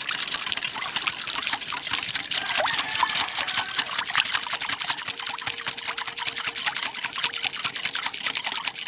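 A wire whisk beating a thin liquid sauce in a glass bowl: rapid, steady clicking of the whisk against the glass with the liquid sloshing.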